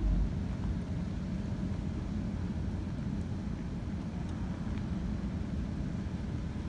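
Steady low rumble of a car driving slowly, with a faint even hum under it.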